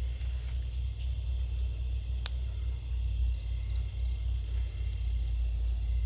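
Night forest ambience: a faint, steady chorus of crickets over a low rumble on the microphone, with a single sharp click a little past two seconds in and a few faint short chirps between about four and five seconds.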